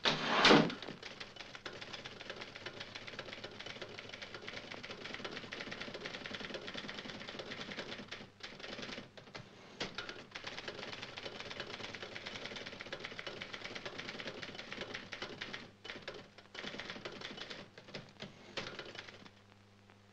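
Manual typewriter being typed on rapidly, a dense clatter of key strikes with a few brief pauses, stopping about a second before the end. A loud bang at the very start.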